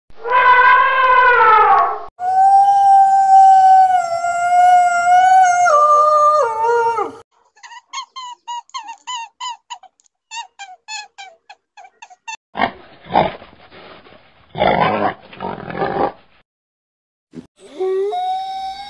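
A dog howling: a long, held, pitched howl that steps down in pitch at its end. It is followed by a run of quick, repeated high chirping calls, then a few rough, noisy calls, and the howling starts again near the end.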